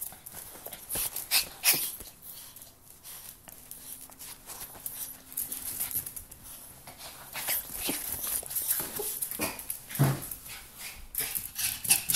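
Excited miniature pinscher whimpering and whining, mixed with scratchy clicks and scuffs as it moves about and is petted.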